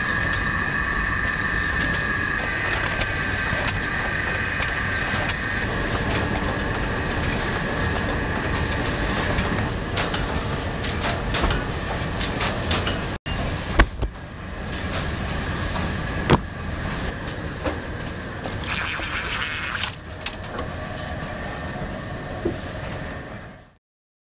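Hardcover bookbinding machinery running: a dense, steady mechanical clatter of many small clicks and knocks, with a high whine through the first half and a few sharper knocks after a break about halfway. It stops just before the end.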